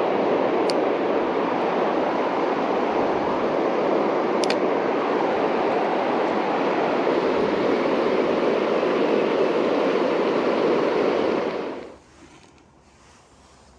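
Steady rush of river water running through a riffle, with two brief high chirps in the first few seconds. The rush cuts off abruptly about twelve seconds in, leaving a much quieter background.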